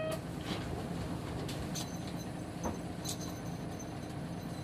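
Nissan Diesel KK-RM250GAN bus's diesel engine running with a steady low note, with scattered light clicks and rattles.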